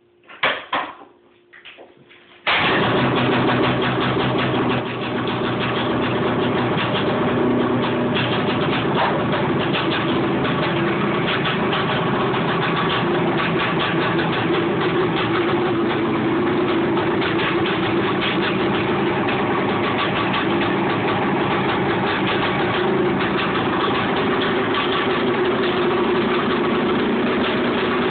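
Honda Odyssey FL250's air-cooled two-stroke single-cylinder engine being pull-started from cold: a few short sounds from the recoil pull, then the engine catches on the first pull about two and a half seconds in and runs steadily. It eases down a little about five seconds in and settles into an even idle.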